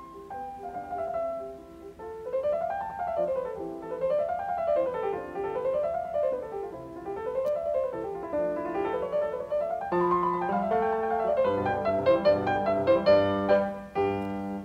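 Background piano music: notes run up and down in repeated waves, then turn to fuller chords over low bass notes about ten seconds in.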